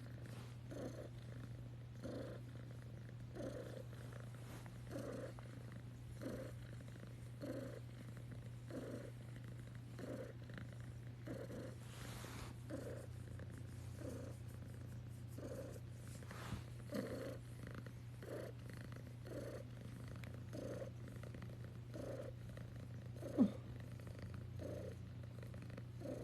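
Domestic cat purring, a steady low purr that swells with each breath about every second and a half. One brief louder sound near the end.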